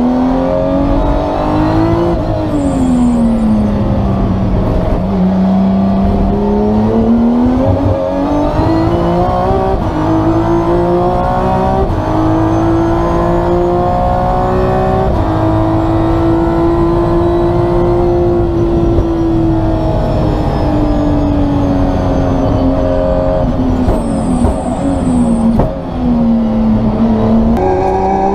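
Aston Martin Vulcan's naturally aspirated 7-litre V12 running hard on track, with the whine of its straight-cut Xtrac sequential gearbox. The note climbs and falls in pitch over several seconds at a time as the car accelerates and brakes, and dips briefly near the end.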